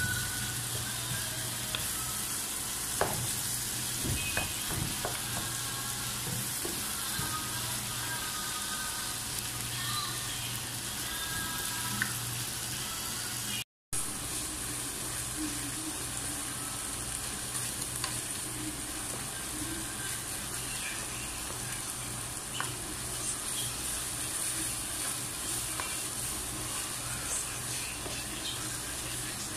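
Ground meat with onion and green pepper sizzling in a frying pan while a wooden spoon stirs it, with scattered scrapes and taps of the spoon against the pan. The sound cuts out for a moment about halfway through.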